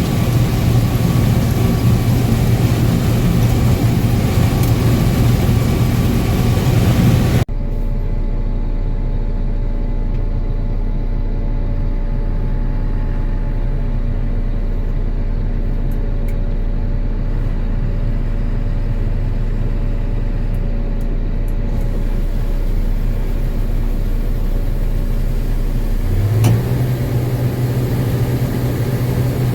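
Combine harvester running steadily under harvest load, a loud heavy engine-and-machinery drone. About seven seconds in the sound changes abruptly to a duller, deeper drone, and it changes again near the end to a louder low drone.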